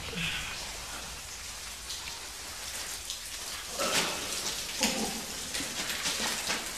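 Water dripping and spattering steadily from the wet rock of an underground tunnel, a constant patter like rain, with two louder scuffs about four and five seconds in.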